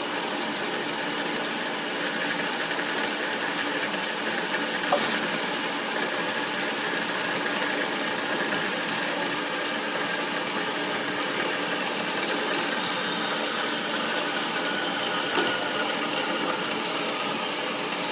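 Horizontal band saw running, its blade cutting slowly down through a solid aluminum bar held in the vise. A steady mechanical running noise, with a few short clicks here and there.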